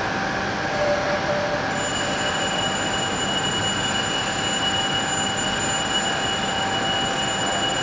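A steady rushing drone with several high, steady whining tones running through it; a few higher tones join about two seconds in.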